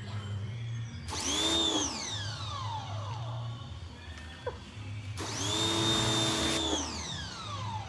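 Pressure washer running twice: each time the motor whines up to speed with the hiss of the water jet, then cuts off and runs down in a long falling whine. The first burst is short, about a second in; the second is longer, past the middle.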